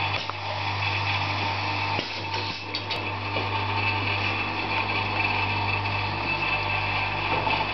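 Pneumatic circular saw blade sharpening machine running: a steady motor hum with a constant high whine, and a few light clicks about two and three seconds in.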